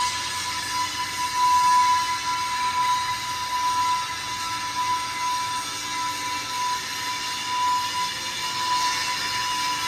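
Workshop machinery running with a steady high whine that holds one pitch, over a broad noisy hum.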